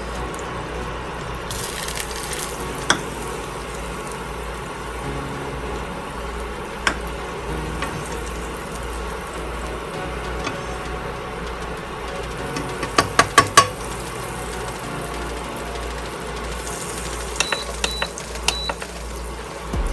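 Butter melting and sizzling in a nonstick wok, with a plastic slotted spatula scraping and knocking against the pan. There is a quick run of about five knocks just past the middle and a few more clicks near the end.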